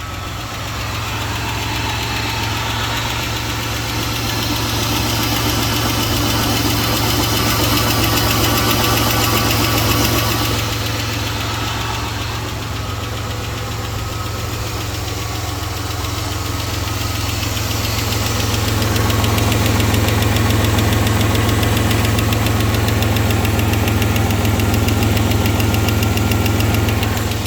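A 2004 Buick's 3.8-litre V6 engine running steadily.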